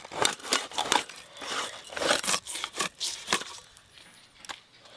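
Katla fish being cut into pieces on a boti, the upright curved blade: a quick run of scraping, crunching strokes as the scaly pieces are pushed through the blade, easing off after about three and a half seconds.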